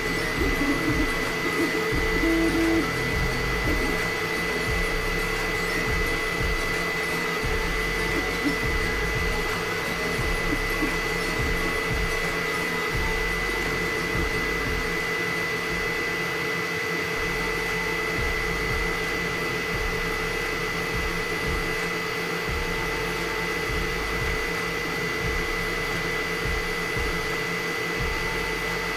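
Elegoo FDM 3D printer running mid-print: a steady fan whir with a thin high whine, and the stepper motors shifting as the print head lays down plastic.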